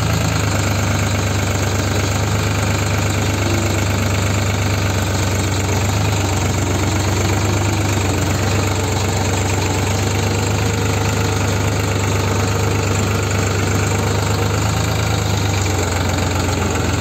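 New Holland 3630 tractor's three-cylinder diesel engine running steadily under load in low-range third gear, pulling a cultivator set fully down into the soil.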